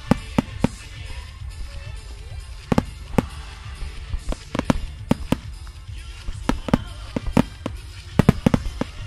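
Starmine fireworks barrage: shells bursting in quick, irregular succession with sharp cracks over a low rumble, the bangs coming thickest near the end. Music plays underneath.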